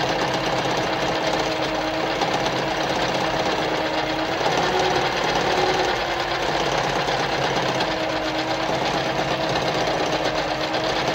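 Veritas Automatic 8014/3 semi-industrial sewing machine running steadily, stitching a decorative pattern stitch, with a steady hum under the rapid needle action.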